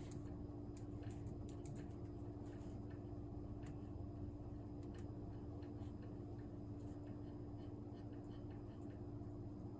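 Light typing on a System76 Oryx Pro laptop keyboard: scattered soft key clicks, thicker about a second in and again around the middle, over a steady low hum.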